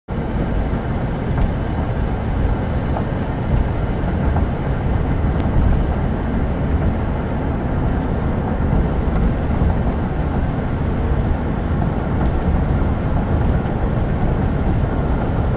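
Steady low road and engine noise inside a moving car.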